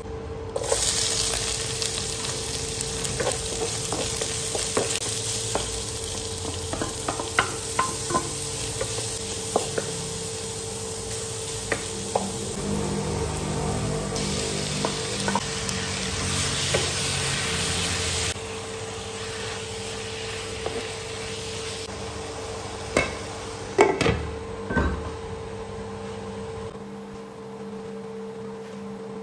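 Onion and garlic sizzling in hot oil in a nonstick wok, with a wooden spatula clicking and scraping as they are stirred. About halfway through the sizzle grows louder as raw chicken is tipped in. Near the end a glass lid goes on with a few sharp knocks, and the frying quiets under it, over a steady hum.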